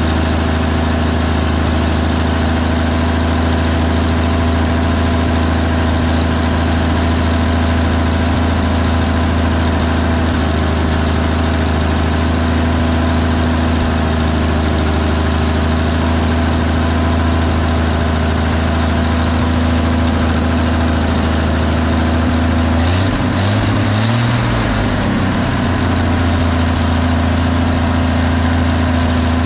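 1955 Chevrolet 6100 truck's straight-six engine idling steadily, freshly running on a rebuilt carburetor and a new fuel pump. About 23 seconds in, the engine speed briefly rises and falls back to idle, with a few light clicks.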